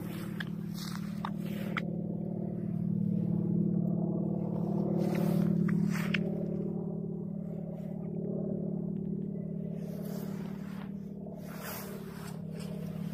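A steady low engine drone, swelling louder a few seconds in and then easing back, with scattered small clicks and scrapes over it.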